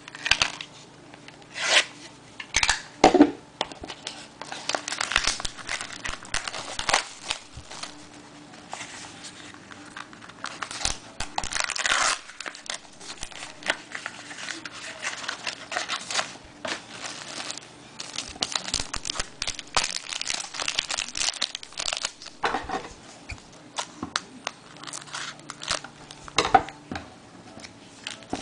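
Wrapper of a trading-card pack being torn open and crinkled in the hands, with many short, irregular crackles as the pack is opened and the cards are handled.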